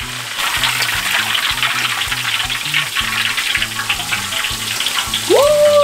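Oil sizzling and crackling as battered Korean corn dogs deep-fry in a wok, over background music with a steady low bass line. Near the end a short tone slides up, holds and slides back down.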